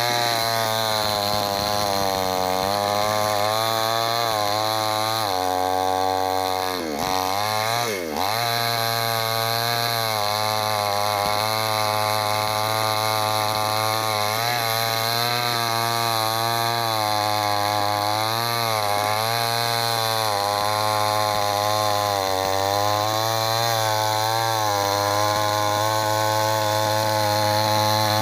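Chainsaw running steadily as it cuts through wood. Its pitch drops sharply and recovers twice, about seven and eight seconds in, with slight wavering throughout.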